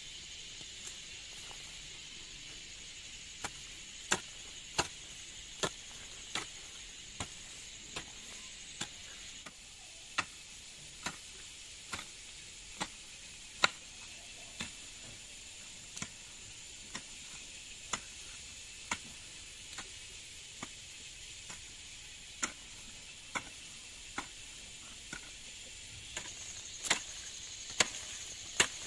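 Hand tool chopping at ground or vegetation in a steady rhythm, one sharp strike about every second, some louder than others, over a steady high-pitched drone.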